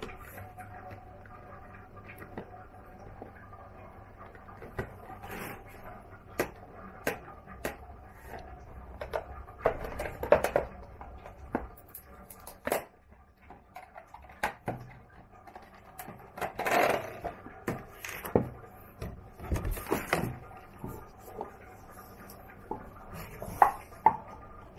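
Clear plastic packaging around a stack of empty paper cups crinkling and rustling as it is handled and pulled open by hand, with scattered clicks. There are louder stretches of crinkling about ten seconds in and again around seventeen and twenty seconds, and two sharp taps near the end.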